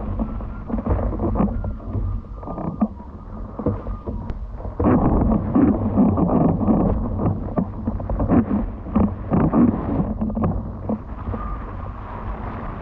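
Wind buffeting the microphone over rushing, slapping water while windfoiling, louder and choppier from about five seconds in until about ten seconds in.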